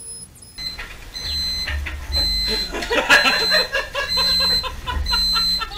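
Car lift's warning buzzer beeping in a high steady tone, in beeps of about half a second roughly once a second, as the lift lowers the car, with a low rumble under each beep.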